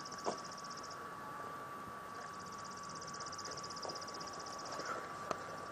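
Insects trilling outdoors: a fast, high-pitched pulsing buzz that stops about a second in and starts again about two seconds in, with a faint steady whine and a couple of light clicks under it.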